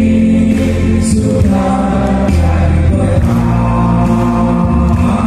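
Music: a song with sung vocals over a bass line that steps from note to note.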